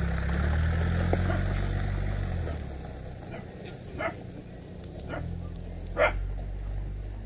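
A dog barks three short times, about four, five and six seconds in, the last the loudest, over a low rumble that fades after the first couple of seconds.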